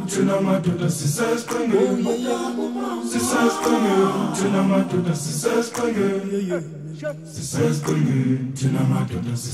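Background music: a group of voices singing in harmony, a cappella.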